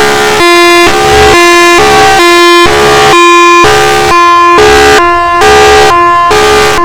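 Federal Signal Thunderbolt siren sounding its hi-lo signal, very loud: a harsh horn-like tone stepping back and forth between a higher and a lower pitch, each held about half a second.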